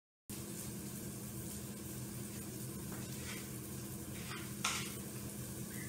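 Onion and bacon frying in oil in a pan, a steady sizzle, starting after a short gap at the start. A brief clatter of a utensil about two-thirds of the way through.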